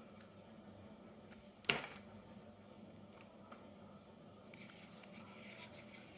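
Quiet room tone with one sharp click a little under two seconds in, and a few fainter ticks.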